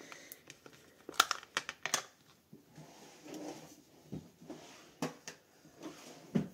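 Plastic case of a Distress Oxide ink pad being opened and handled on a tabletop: a few sharp clicks and taps of the snap-on lid and case, with soft rustling between them.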